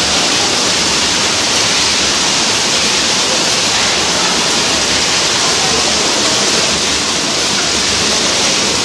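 Canning line machinery running: a loud, steady hiss-like din with no clear rhythm.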